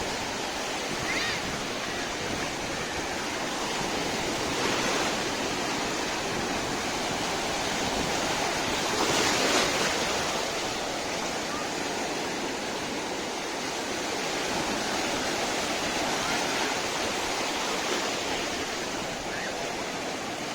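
Sea surf washing onto the beach: a steady rush of waves, with a louder wave breaking about nine seconds in.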